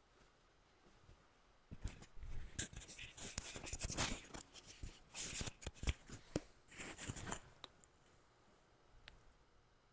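Cloth rustling, mixed with light handling clicks and knocks, as a humeral veil is drawn over a priest's shoulders. It starts about two seconds in and goes on in irregular bursts until about seven seconds in, then a few faint ticks follow.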